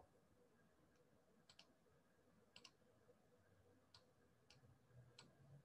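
Near silence with about five faint, irregularly spaced clicks.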